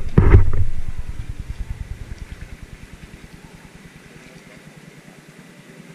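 Pool water slapping and splashing against a camera held at the water's surface, with a loud splash just after the start and a low, evenly pulsing rumble that fades away over the next few seconds.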